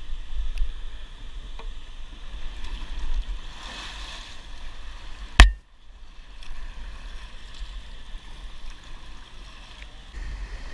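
Paddle strokes and water splashing and lapping against a plastic whitewater kayak moving down a channel, with a low wind rumble on the microphone. One sharp, loud knock about five seconds in.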